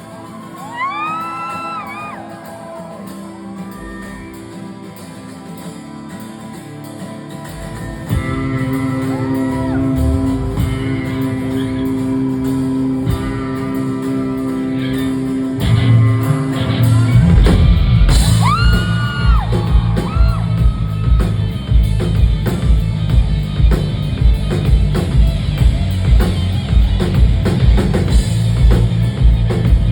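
Live rock band playing. A soft guitar passage grows fuller about eight seconds in, and the full band with drums comes in about halfway through.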